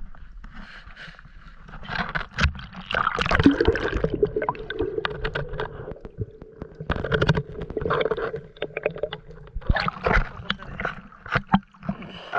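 Water sloshing and gurgling around a camera held at the surface as it dips under and comes back up, in uneven surges with scattered clicks and knocks.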